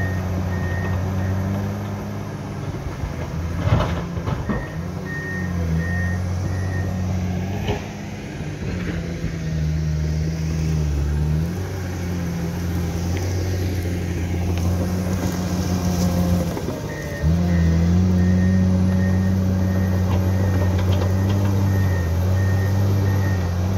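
Komatsu D61 crawler dozer's diesel engine running under changing load as it cuts and pushes earth, its note rising and getting louder about two-thirds of the way through. A couple of sharp metal clanks come early on the way, and a backup alarm beeps steadily in spells.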